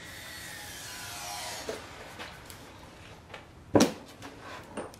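Plastic intake manifold of a 5.7 Hemi being handled and shifted on a workbench: rubbing and light scraping with small clicks, and one sharp knock almost four seconds in.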